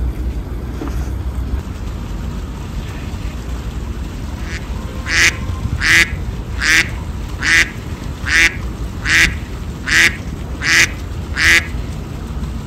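White domestic geese honking: a run of about nine evenly spaced honks, a little under one a second, starting about five seconds in, over a steady low background rumble.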